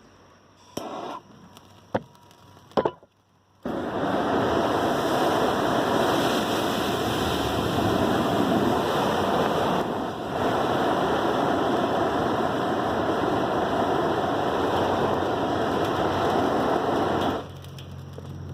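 A few sharp clicks and knocks, then a loud, steady rushing hiss that starts abruptly, dips briefly midway and cuts off after about fourteen seconds.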